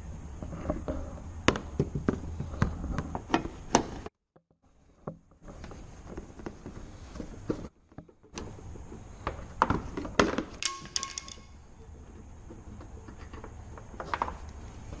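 Irregular clicks and knocks of hand work on a Fiat Punto's headlight and bumper: a T-handle socket tool at the headlight fixings and plastic panels being pushed into place. The sound cuts out twice briefly, and a short ringing clink comes about ten seconds in.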